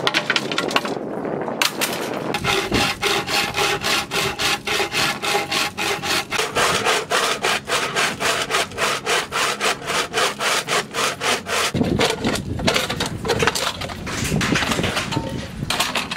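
Hand saw cutting through a thick, dry bamboo tube, in quick, even back-and-forth strokes about three or four a second, with the hollow tube ringing under the strokes.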